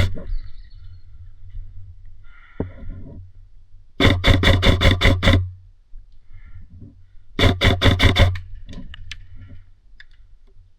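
Two bursts of rapid, evenly spaced shots from an airsoft gun fired on full auto. The first burst lasts about a second and a half, and the second, shorter one comes about two seconds later. A low rumble of handling noise and a few knocks sit underneath.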